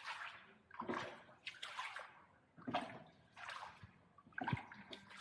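Oars of a rowed boat dipping and pulling through the water, splashing and sloshing in uneven strokes about once a second.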